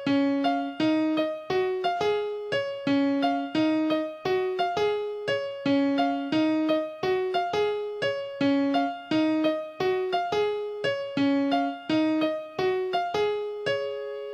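Keyboard piano playing a repeating melody of single struck notes, about three notes a second. It ends on a held note that fades.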